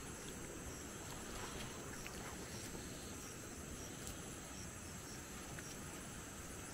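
Insects chirring steadily in a high, thin drone over a continuous low rushing noise, with a few faint chirps.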